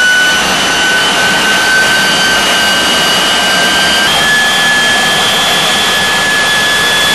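Rolls-Royce Derwent centrifugal-flow turbojet running: a loud, steady rush of exhaust with a high compressor whine over it. The whine creeps slowly up in pitch and jumps slightly higher about four seconds in.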